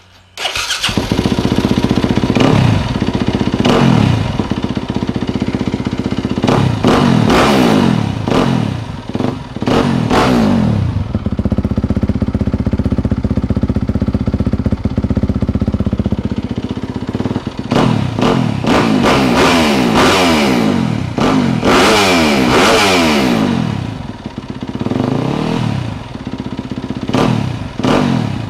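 Yamaha YZ250FX's 250 cc single-cylinder four-stroke engine breathing through a new Akrapovic slip-on exhaust, catching under a second in and then revved repeatedly, each rev rising and falling in pitch. A steady idle fills the middle stretch, and a few short throttle blips come near the end.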